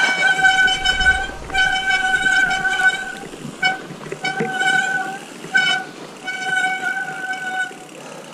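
Mountain bike disc brakes squealing with a steady, horn-like tone in about six separate squeals, some a second or more long and some short, as the brakes are applied and released on the snowy descent.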